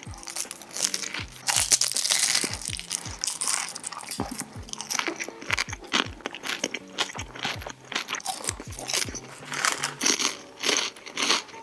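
Close-miked crunching and chewing of food, many sharp bites in a row, over background music with a steady bass beat.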